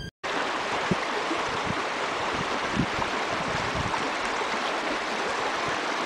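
Steady rushing of the Bhavani River's flowing water, beginning suddenly after a brief silence, with a faint low thud now and then.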